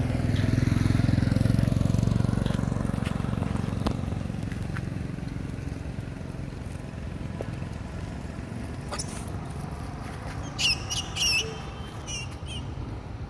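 A low rumble swells over the first couple of seconds and slowly fades. Near the end, macaques give two short, loud, high-pitched squeals, with a fainter one just after.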